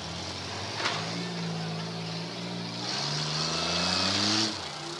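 Demolition derby car engines revving, with one sharp bang about a second in. Around three seconds in an engine note rises under a loud high-pitched noise that cuts off suddenly shortly before the end.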